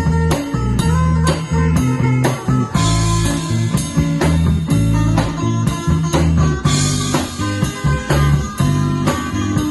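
Kugiran band playing: electric guitars over bass guitar and drum kit, on a steady beat, with cymbal crashes about three and seven seconds in.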